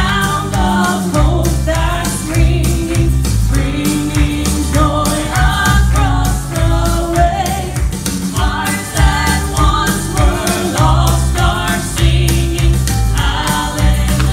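Gospel vocal trio, two women and a man, singing in harmony through microphones, over instrumental accompaniment with a heavy, rhythmic bass line.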